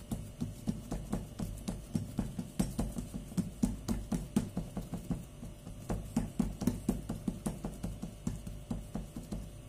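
Fingertips pressing and patting a ball of yeast dough flat on a wooden pastry board: a run of soft, quick knocks, about three to four a second.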